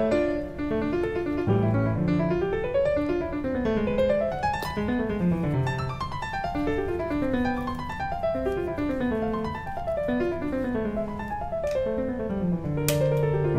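Background piano music: flowing runs of notes that climb and fall in quick steps.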